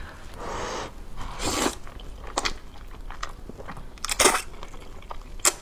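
Close-miked slurping and chewing of saucy instant noodles: several noisy slurps, the loudest about four seconds in, with small wet mouth clicks between and a sharp smack near the end.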